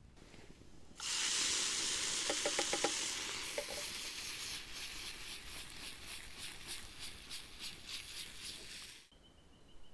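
Food frying in olive oil in a pan: a loud sizzle starts suddenly about a second in, then slowly eases to a pulsing, crackling sizzle and cuts off near the end. A few quick ticks sound about two to three seconds in.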